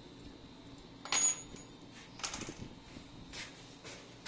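Small steel parts of a .22 rifle's action clinking against metal twice, about a second apart, each with a brief high ring; the first is the louder.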